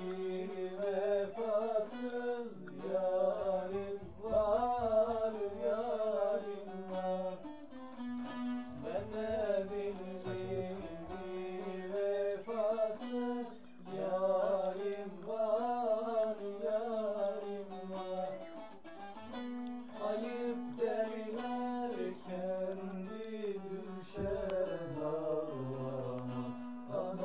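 A bağlama (long-necked Turkish saz) being strummed and plucked, accompanying a man's voice singing a Turkish folk song (türkü) in a wavering, ornamented melody over a steady low note from the strings.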